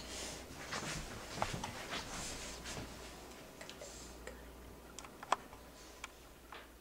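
Faint rustling with scattered light ticks and taps from a cat moving about on wooden furniture, with a sharper click about five seconds in.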